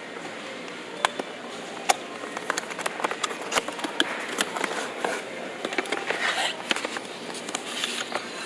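A plastic-packaged socket holder being handled and turned over, giving a scatter of sharp clicks and crinkles, with rustling around the middle, over a steady background hum.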